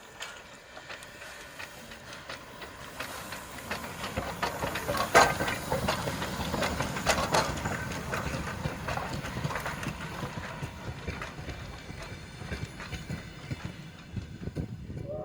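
Steam-hauled train rolling past: a dense rattling clatter of knocks over a low rumble that builds to its loudest about five to seven seconds in, then eases off somewhat.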